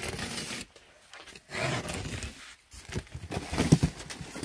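Cardboard box being opened by hand: tape and cardboard flaps rustling, scraping and tearing in three short bursts, with a few sharp clicks.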